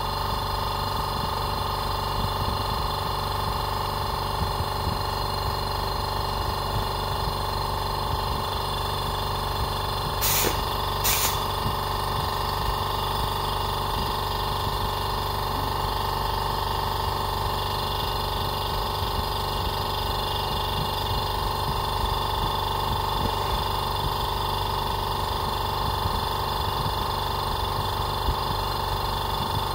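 Electric motor of a benchtop leatherworking machine running with a steady hum. Two sharp clicks come about a third of the way in.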